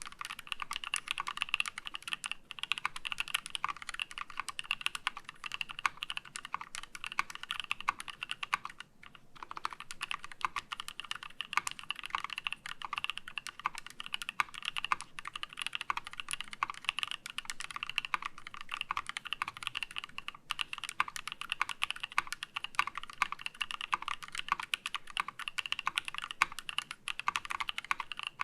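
Fast, continuous typing on a KEY65 mechanical keyboard with a titanium plate, lubed NK Cream linear switches and CRP keycaps. There is a short pause about nine seconds in.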